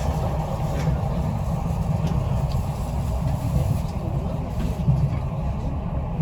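Passenger train running: a steady low rumble with a duller rushing noise above it.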